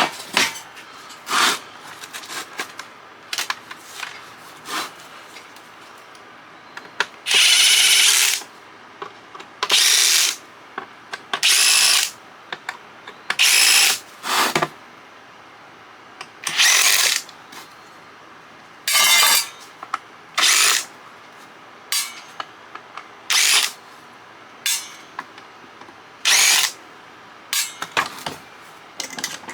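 Cordless power drill/driver backing screws out of a CB radio's case, run in a dozen or so short bursts of about a second or less with pauses between.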